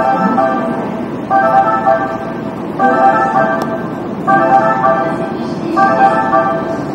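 Electronic chime repeating a short multi-tone phrase about every second and a half, over the low hubbub of a railway station.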